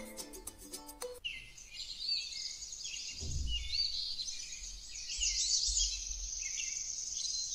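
Light mallet-instrument music cuts off about a second in, and birds chirping take over: many short rising and falling calls over a low rumble.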